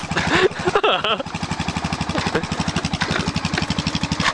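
An ATV engine running at a steady idle, with an even, rapid pulsing beat. Brief voices about a second in.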